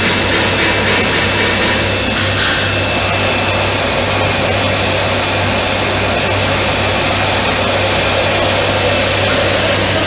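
Automatic rolling-drum bottle washing machine running: a steady hiss over a constant low hum.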